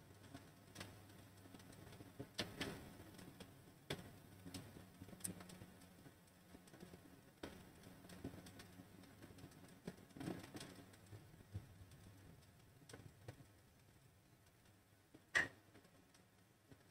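Quiet room tone with a faint low hum and scattered small clicks and knocks, with one sharper click near the end.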